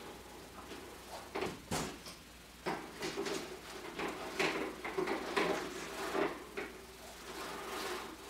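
Tulle netting rustling and swishing as lengths of it are gathered and handled by hand, with a couple of sharper knocks about two seconds in.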